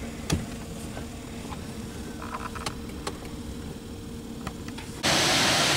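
Low, steady rumble of an idling vehicle heard from inside it, with a faint hum and a few light clicks; about five seconds in it cuts abruptly to the loud, even rush of water pouring over a mill-dam waterfall.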